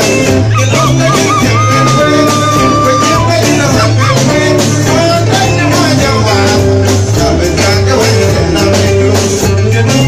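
Live band dance music played loud through a PA, with a man singing into a handheld microphone over electric guitar, bass guitar and drums. A high note is held for about a second and a half near the start.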